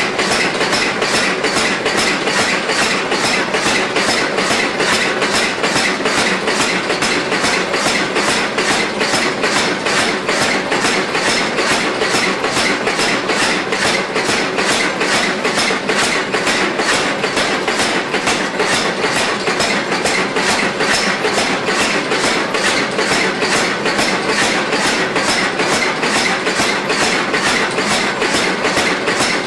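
Steady, even hammer blows forging hot steel for a pair of blacksmith's tongs, about two blows a second without a break, over a continuous rushing noise.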